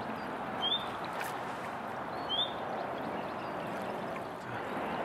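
Shallow river running steadily over stones, with a short high chirp heard twice, about a second and a half apart.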